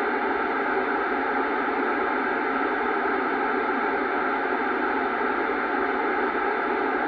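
Steady FM receiver static (hiss) from a Kenwood TS-790 transceiver tuned to the ISS downlink on 145.800 MHz. The open squelch lets the noise through while no signal is coming down from the station between the astronaut's replies.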